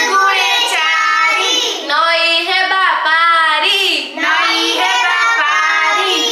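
A young girl singing an Odia multiplication-table rhyme for the two-times table, in phrases of held, gliding notes with short breaks for breath.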